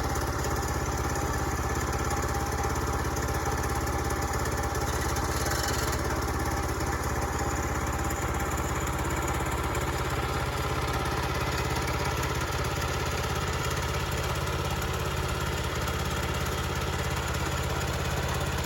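Portable sawmill's small gasoline engine running at a steady speed, an even, unbroken drone.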